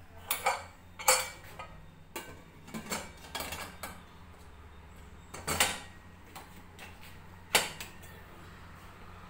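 Metal clanks and knocks of a pressure cooker being closed and handled, with its lid set on and shut and the pot moved on the counter. About seven sharp clanks, the loudest about a second in and another late on.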